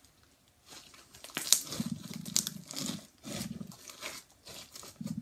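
Thick glitter slime being stretched and squeezed by hand, crackling and squishing in a few bursts.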